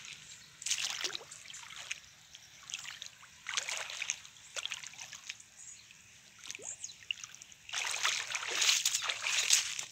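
Footsteps through wet mud and elephant grass: swishing and splashing in separate bursts, the longest about two seconds near the end.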